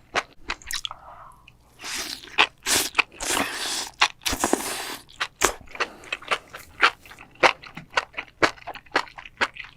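Close-miked eating of crunchy mushrooms: a run of sharp, wet crunches from biting and chewing, loudest and densest from about two to five seconds in.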